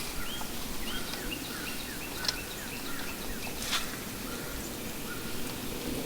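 Birds chirping: a series of short, repeated whistled notes, some slurring downward, over steady outdoor background noise, with a couple of sharp clicks.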